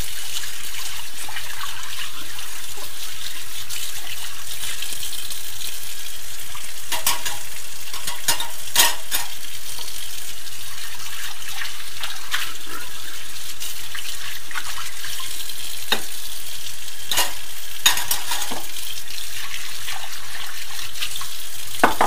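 Kitchen tap running steadily into a sink while a plate is rinsed and scrubbed under the stream, with a few short clinks of crockery being handled.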